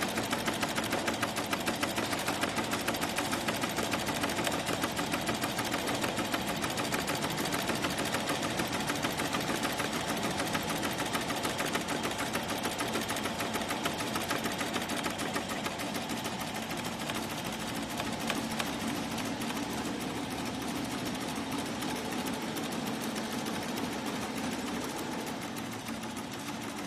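BAI multi-needle commercial embroidery machine stitching a logo onto a baseball cap: the needle bar runs with a fast, steady clatter of needle strokes, a little quieter in the second half.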